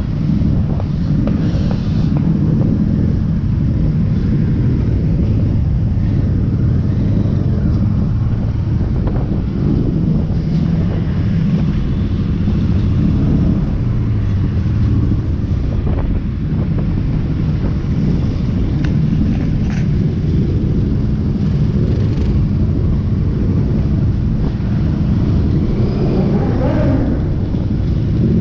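Motorcycle engines running in a riding convoy, a steady low rumble with wind buffeting the microphone; a rising note near the end.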